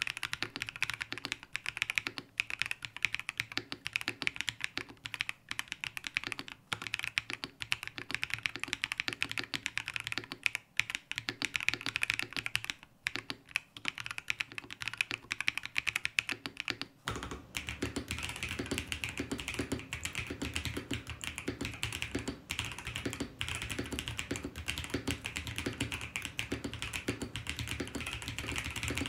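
Continuous fast typing on a Razer BlackWidow V4 75% mechanical keyboard with Razer Orange tactile switches, a dense stream of key clacks. About seventeen seconds in the recording changes microphone, from a dynamic mic to a phone's mic, and the typing takes on a fuller, deeper body.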